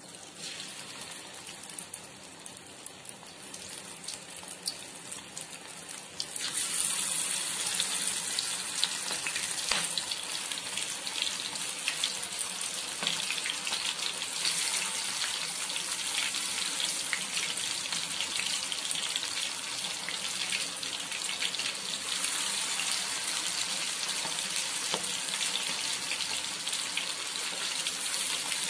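Masala-coated prawns deep-frying in hot oil in a kadai: a steady sizzle full of small crackles. It grows clearly louder about six seconds in, as more prawns go into the oil.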